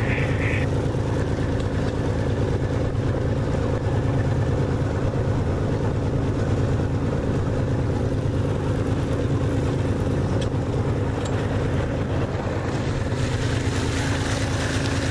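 A 16-foot flats skiff's motor runs steadily under way, with the rush of wind and water over it.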